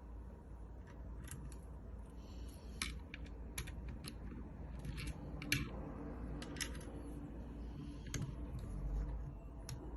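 Scattered sharp clicks and taps of a solid-state drive and its fittings being handled and pulled from the drive bay, over a steady low hum.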